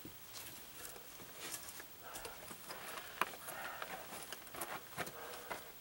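Fiberglass insulation batts rustling and scraping as they are handled and pushed back up between floor joists. Faint, irregular crackles with light clicks, and one sharp tick about three seconds in.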